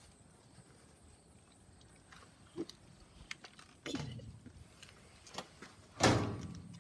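Great Pyrenees puppies nosing at a metal lidded dog feeder: scattered clicks and rattles, a noisy scuffle about four seconds in, and a louder short noisy burst about six seconds in.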